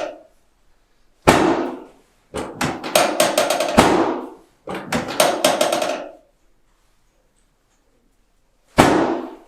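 Chiropractic adjusting instrument firing strings of rapid, sharp clicking taps during an adjustment. It comes in four bursts, the longest nearly two seconds, with a pause of a couple of seconds before the last.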